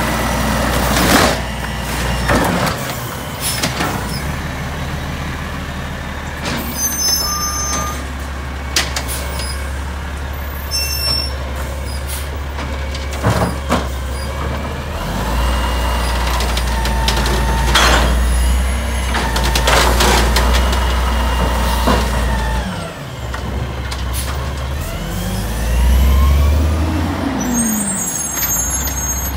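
Automated side-loader garbage truck collecting curbside carts: the diesel engine runs steadily under repeated knocks and bangs from the grabber arm and carts, with air brakes hissing. The engine surges louder near the end.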